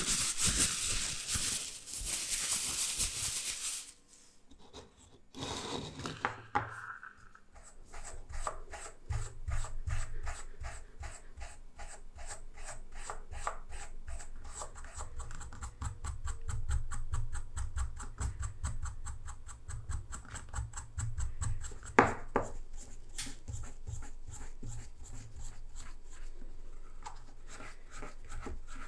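Steel wool rubbed in quick back-and-forth strokes over a stained wooden awl handle, a fast scratchy rasping, with one sharp knock about two-thirds of the way through. A brief hiss comes before the rubbing starts.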